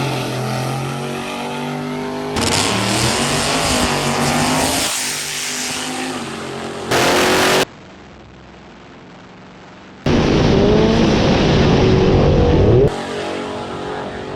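Race car engines running and revving, heard in a run of short clips that cut abruptly from one to the next, with a quieter stretch in the middle.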